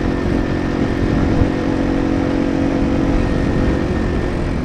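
Yamaha TW200's single-cylinder engine running at a steady pace while the bike rides along, with a rough rush of wind and road noise.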